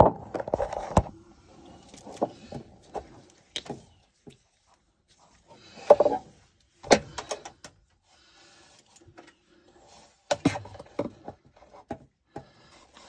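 Irregular knocks, clicks and rubbing of hands and a handheld camera against the underside of a trailer, with clusters of sharp knocks near the start, about six seconds in and around ten seconds in.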